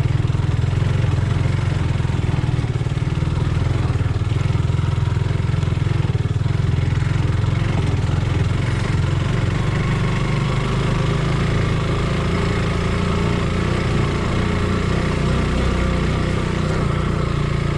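Suzuki Gixxer 150's single-cylinder engine running steadily while the motorcycle is ridden along at an even pace.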